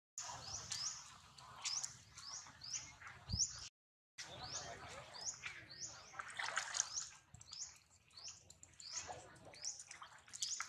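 A bird chirping over and over, short rising-and-falling chirps about twice a second. There is a thump a little over 3 seconds in, and the sound cuts out to silence twice, briefly, at the start and about 4 seconds in.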